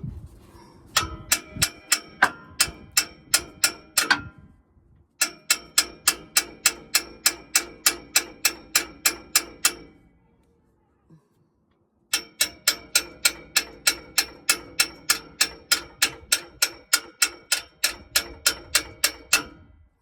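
Hammer tapping steadily on metal, about four blows a second in three runs with short pauses between, each blow ringing: knocking at a seized oxygen sensor to loosen it.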